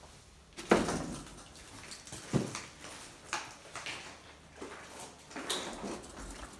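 Footsteps on a debris-strewn tiled floor: a series of irregular knocks and scuffs, the first and loudest just under a second in.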